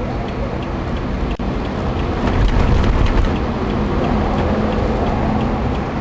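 Steady vehicle engine and road rumble heard from a car following police motorcycles. It grows louder about two seconds in as the traffic passes through a road tunnel, with a faint regular ticking.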